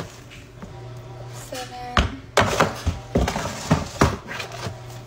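A clear plastic scoop knocking against a plastic storage bin as it scoops powdered homemade laundry detergent. Several sharp thunks come in quick succession from about two seconds in.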